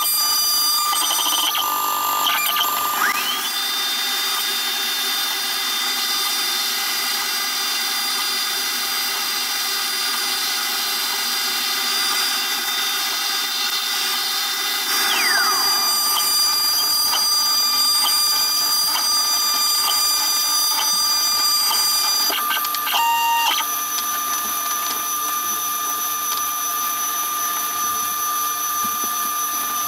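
CNC router spindle with a small end mill cutting a wooden knife-handle scale: a steady high machine whine. A second tone rises about three seconds in, holds, and falls away about halfway through, and there is a brief change in the whine near the 23-second mark.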